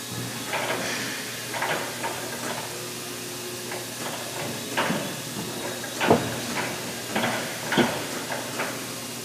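Irregular metal knocks and clanks, about six of them, the loudest about six seconds in, as a large turboprop propeller hanging from a hoist is worked into place on the engine. A steady hiss runs underneath.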